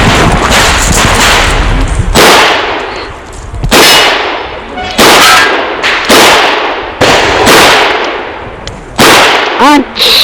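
A string of .38 Special revolver shots from a Chiappa Rhino 40DS, fired one at a time about a second or so apart. Each sharp report trails off in echo.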